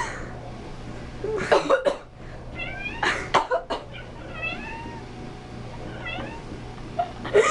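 Domestic cat meowing back in short, bending calls, three or four times, in protest at a person's coughing. Between the meows come a few bursts of coughing.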